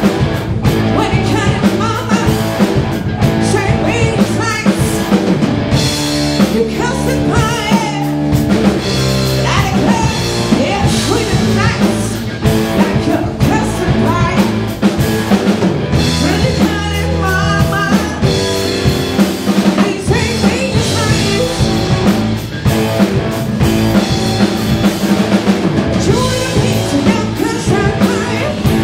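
Rock band playing live: a woman singing lead over electric guitars and a drum kit with a steady beat.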